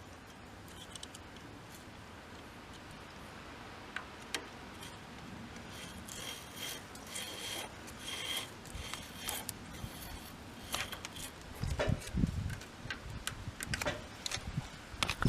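Hand tool work: a series of irregular rubbing and scraping strokes that start about six seconds in, some with a thin squeak, and a few dull knocks near the end.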